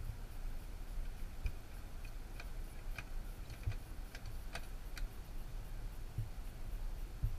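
Light metal clicks and taps from a firefighter handling a portable ground monitor nozzle, several between about one and five seconds in, over a steady low rumble.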